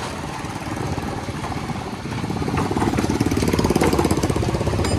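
A small motorcycle engine running, its rapid firing pulses growing louder about two and a half seconds in.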